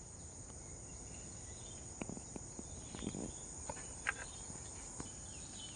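Steady high-pitched drone of insects in the surrounding vegetation, with a few faint clicks in the middle.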